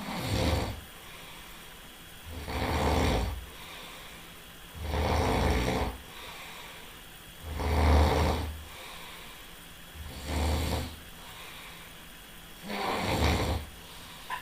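Loud snoring in a steady rhythm: six rasping snores, about one every two and a half seconds, each lasting roughly a second. Quieter breathing comes between them, and the snore about eight seconds in is the loudest.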